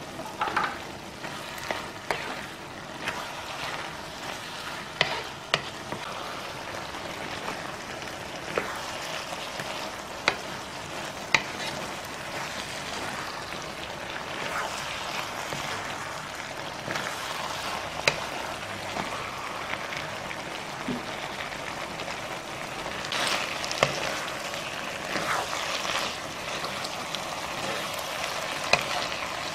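Diced Spam, fish cake and vegetables in a sticky soy-chilli sauce sizzling in a frying pan as they are stir-fried, with sharp clicks of the spatula against the pan every few seconds.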